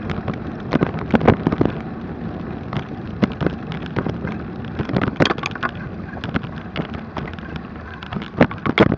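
Mountain bike riding over a rough snowy trail: a steady rush of tyre and wind noise with frequent irregular knocks and rattles from the bike.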